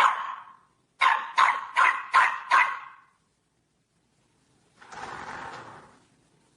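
A dog barking: one bark, then a quick run of five sharp barks. Near the end comes a softer noisy sound about a second long.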